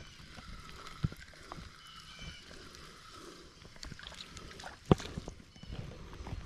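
Creek water sloshing around a person wading in waders, with a few sharp knocks, the loudest about five seconds in.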